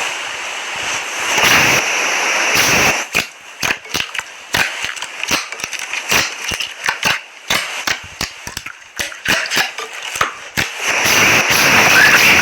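Slime being squeezed and worked by hand, making wet crackling: a dense hissing crackle at first and again near the end, with many quick irregular clicks and pops in between.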